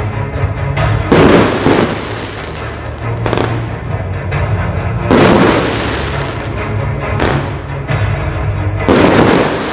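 Aerial firework shells bursting over a music soundtrack: three loud booms about four seconds apart, each fading over about a second, with smaller bursts between them.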